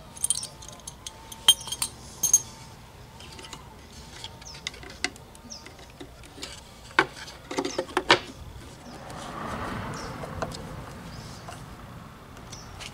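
Small metal hand tools and battery-terminal hardware clinking and clicking irregularly as a 12-volt battery's leads are bolted back on with a small adjustable wrench. A softer scraping rustle runs for a couple of seconds later on.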